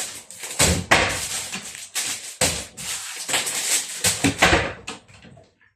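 A cupboard door being forced open against a tiny door closer: a run of irregular knocks and rubbing noises from the door and closer, stopping about five seconds in.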